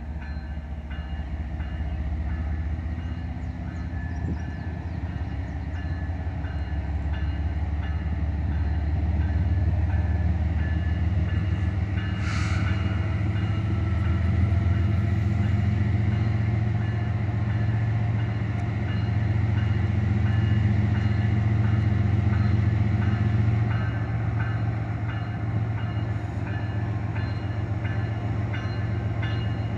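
Diesel locomotives of a CN double-stack intermodal freight train pulling away. The engines give a heavy, steady rumble that grows louder as the train picks up speed, then eases slightly near the end. A brief sharp noise comes about twelve seconds in.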